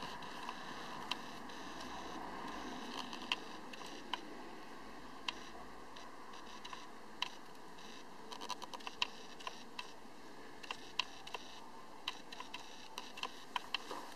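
Handling and lens-focus noise from a handheld DSLR, picked up by its built-in microphone: irregular sharp clicks and ticks over a steady faint hiss, coming more often in the second half.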